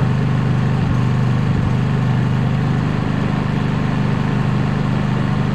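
Dual-fuel portable generator's engine running steadily on propane, a constant even drone.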